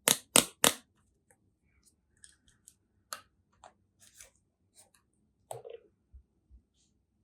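Three quick scissor snips through packaging, followed by faint scattered clicks and rustles of the box and plastic being handled.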